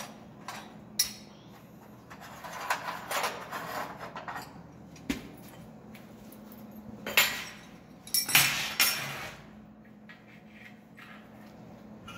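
Loose pieces of scrap steel clattering and clinking against metal in several bursts, the loudest about eight seconds in, over a faint steady hum.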